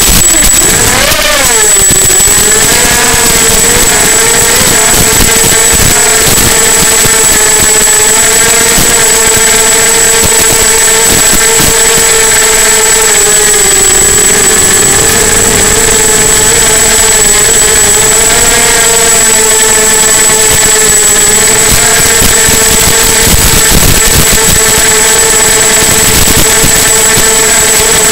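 Brushless motors and 5040 propellers of an EMAX 250 quadcopter whining in flight. The pitch climbs and drops sharply about a second in, then holds nearly level with slow wavers as the throttle changes. A thin steady high-pitched whistle runs underneath.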